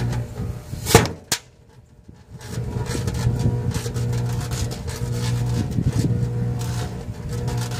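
Microwave oven running with a steady electrical hum while the firecrackers loaded inside it go off. Two sharp bangs come about a second in, then irregular crackling and popping over the hum as the fireworks burn inside the oven.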